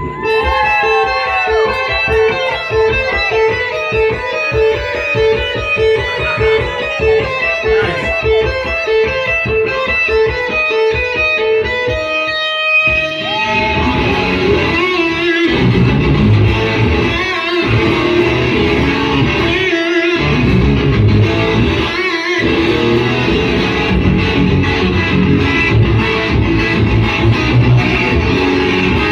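Electric guitar played live as an instrumental, first with tapped and bent melody notes over a steady pulsing bass line. About halfway through it shifts to fuller strummed chords broken by several short stops.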